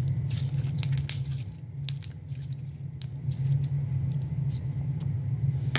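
Slime being squeezed and worked between the hands, giving scattered small clicks and pops, over a steady low hum.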